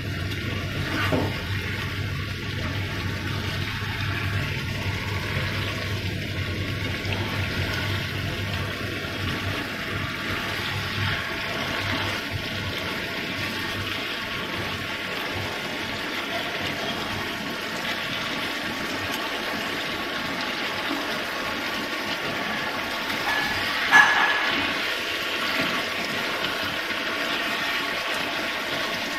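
Pork and tomatoes sizzling in a pan on a gas stove, stirred with a plastic spatula. A steady sizzle runs throughout, with one sharp knock of the spatula against the pan about three-quarters of the way through.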